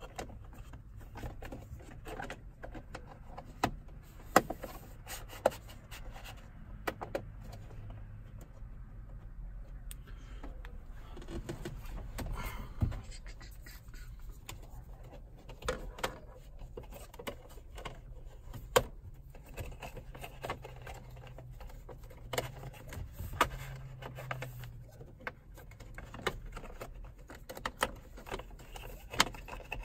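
Snap-on wire covers being pressed into a wire-loom channel above a windshield: irregular sharp clicks and taps as they are handled and snapped on, every second or few, over a low steady hum.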